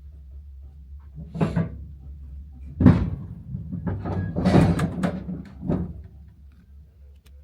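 A series of knocks and clunks in a train carriage, the loudest about three seconds in and a cluster around four to five seconds in, over a low steady hum.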